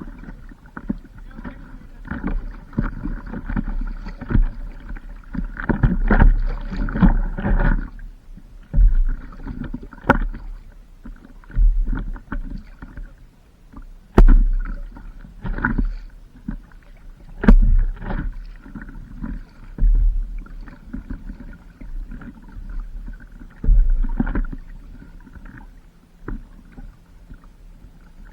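Water splashing and sloshing on the water around a paddleboard in irregular surges every few seconds, with a low rumble of wind on the microphone.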